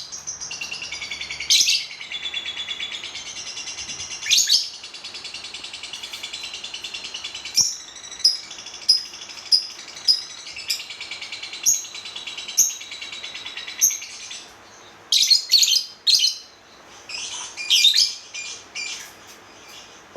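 Lovebird chattering in a fast, high, steady twitter, broken by sharp shrill chirps: a run of single chirps about once a second in the middle, then clusters of loud calls, with the chatter dropping away near the end.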